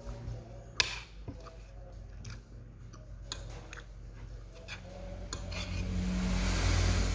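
Metal spoon and fork clicking and scraping on a plate while gathering leafy greens, with one sharp clink about a second in. In the last two seconds the low hum of a motor vehicle's engine rises steadily and becomes the loudest sound.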